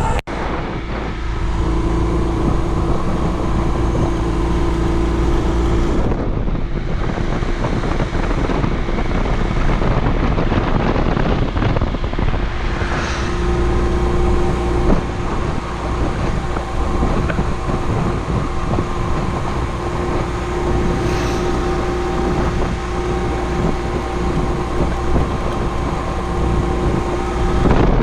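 Honda CD125 twin's air-cooled parallel-twin engine running under way, with heavy wind noise on the microphone. The engine note holds steady, eases off about six seconds in, and is steady again from about thirteen seconds.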